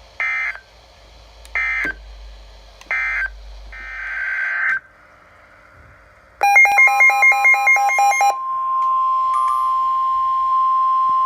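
NOAA Weather Radio alert signalling: three short bursts of SAME digital data tones end the previous warning. About six seconds in, a two-second run of rapid pulsing data tones opens a new alert, then the steady 1050 Hz warning alarm tone begins, announcing a flash flood warning.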